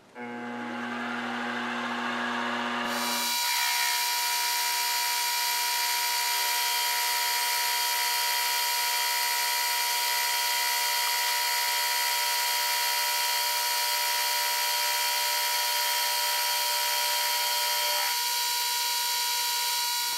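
Milling machine with a roughing end mill cutting a pass along aluminium tube: the spindle winds up with a rising whine over the first three seconds, then a steady, high-pitched cutting screech with many fixed tones, which stops abruptly at the end. The pass takes 25 thou off to form a flat.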